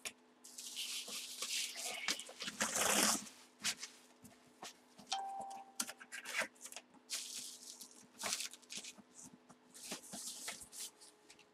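A cardboard helmet box and its packaging being handled and closed up. Intermittent rustling and crinkling with small taps, loudest about three seconds in.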